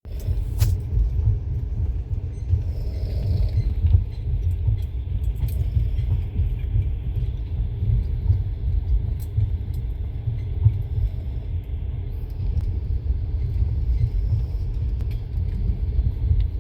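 Steady low rumble of a moving vehicle, with a sharp click about half a second in.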